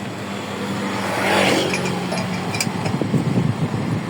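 A motor vehicle passes by: its noise swells and fades, loudest about a second and a half in, over a steady low hum.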